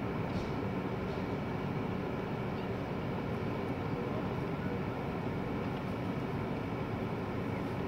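Steady, even low rumble of outdoor background noise, with no distinct events standing out.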